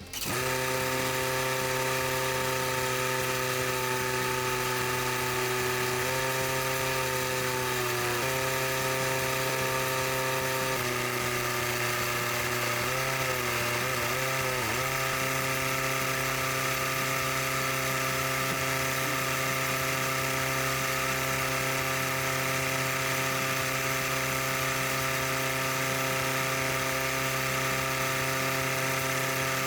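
A motor running steadily at a constant pitch, starting suddenly; its pitch dips and wavers briefly about six seconds in and again around thirteen to fifteen seconds in, as if under changing load.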